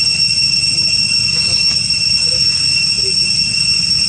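Cicadas droning in a steady, unbroken high-pitched whine over a low rumble.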